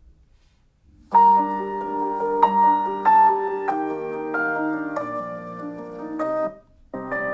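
Piano-led music played through a Samsung Galaxy tablet's built-in speakers. It starts about a second in after a short silence and breaks off briefly near the end before resuming.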